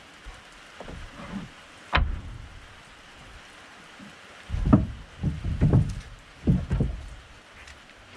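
Wooden knocks and thumps of sawn boards and stickers being set down on a lumber stack: one sharp knock about two seconds in, then a run of heavier thumps, over the light patter of rain starting to fall.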